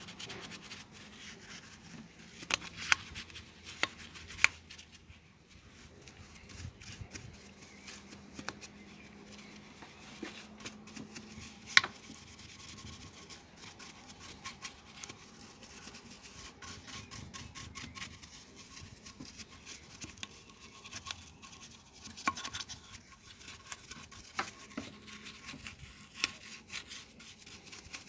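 Stiff bristle paintbrush scrubbing back and forth over an alloy wheel's spokes and hub, a continuous dry, scratchy brushing. A few sharp clicks are scattered through it, the loudest about halfway through.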